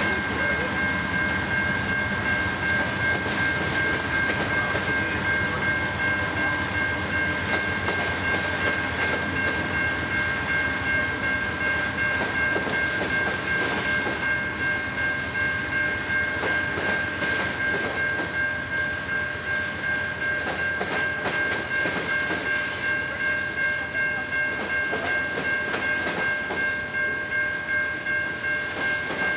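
Freight cars of a passing train rolling by, with a rhythmic clatter of wheels over rail joints that grows more distinct in the second half. A steady high-pitched squeal holds over the rumble.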